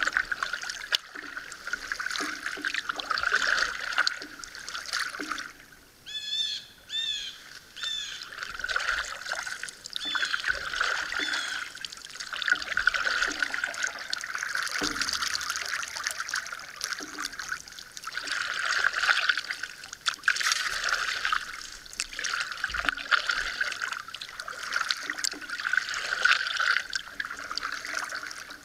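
Double-bladed paddle strokes from a solo pack canoe, water splashing and trickling off the blades in swells every couple of seconds. A bird chirps a short quick run of notes about six seconds in.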